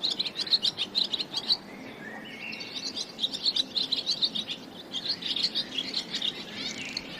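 Swallow twittering: fast runs of short, high chirps, with a brief lull about two seconds in.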